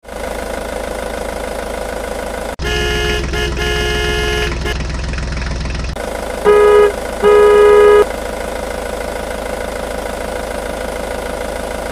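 Vehicle horn honking over a steady engine rumble: a few short toots about three seconds in, then two longer, louder honks around the middle. The sounds come from a soundtrack laid over plastic toy trucks, not from the toys.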